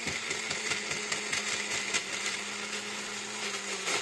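Single-serve personal blender running, its motor whirring steadily as it blends a nut drink, with a rattle of ingredients against the cup. The motor note stops just before the end.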